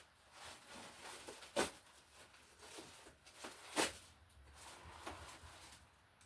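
Light clicks and handling noise of stiff copper wires being worked and pushed into push-in Wago wire connectors, with two sharper clicks about one and a half and four seconds in.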